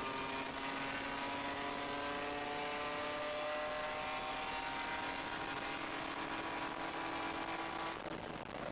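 Race car engine heard from inside the cockpit, pulling hard in one gear with its pitch climbing slowly, over steady wind and road noise. Near the end the engine note breaks off and drops away.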